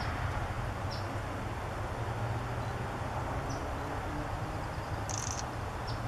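A steady low rumble with a few short, faint high bird chirps every second or two, and a brief buzzy high note about five seconds in. No pecking or drumming stands out.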